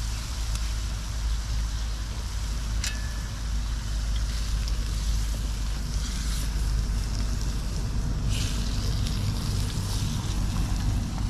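Wind buffeting the microphone with a steady low rumble, over the hiss of pork frying in a small pot on a wood fire, with a few light clicks as it is stirred with chopsticks.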